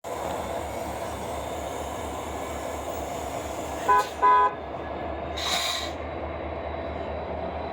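Diesel locomotive horn on CSX SD40-3 4004 giving two short blasts about four seconds in, the second a little longer, over a steady low rumble. A brief hiss follows about a second later.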